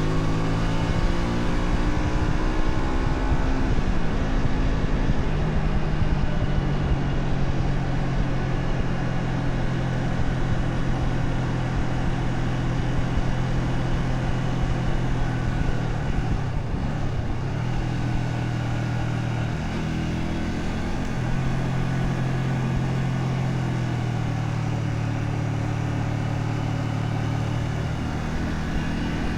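Honda Shadow 125's small V-twin engine running while riding on the road. The engine note falls off in the first few seconds, dips and picks back up about two-thirds of the way through, and shifts pitch a few more times with the throttle.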